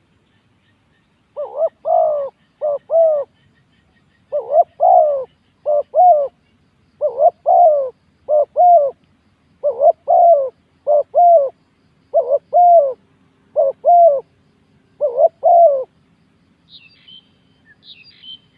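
Spotted dove cooing: a run of paired phrases, a longer coo followed by a shorter one, repeated for about fourteen seconds. Near the end come a few faint, high chirps.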